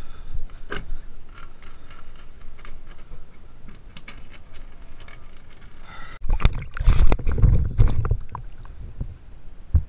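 A string of light clicks and knocks as a plywood board is fitted by gloved hands, then about six seconds in a loud rush of water sloshing and splashing around the camera at the water surface, dying back near the end.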